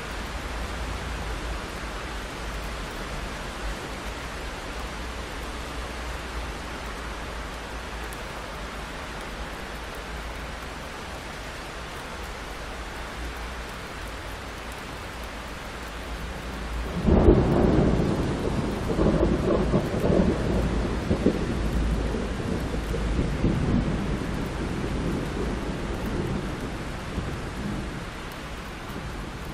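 Steady rain, then a little past halfway a sudden loud thunderclap that rolls and rumbles in waves for about ten seconds, slowly fading back under the rain.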